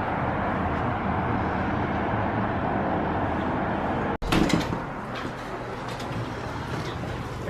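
Steady road and engine noise of a moving car, heard from inside, with a low hum under it. About four seconds in it cuts off suddenly and gives way to a quieter, similar rumble with a few light clicks and knocks.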